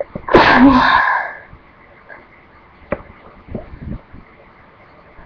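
A person sneezing once: one loud, voiced sneeze about a third of a second in that lasts about a second, followed by a few short, quieter sniffs.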